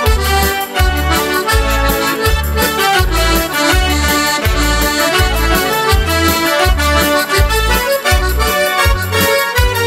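Instrumental introduction to a Slovak folk song, led by accordion, with chords and melody over a steady bass beat of about two beats a second.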